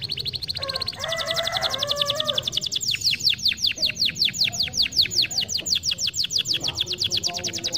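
Domestic canary singing a rapid trill of repeated high notes. About a second in it changes to a fast run of downward-sweeping notes, about ten a second, with quieter, lower warbling notes underneath a little after the start and near the end.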